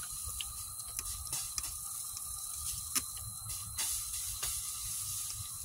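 Trigger spray bottle squirting water in several short bursts onto a hot steel pipe, the water sizzling off as steam, over the steady rumble of a propane burner.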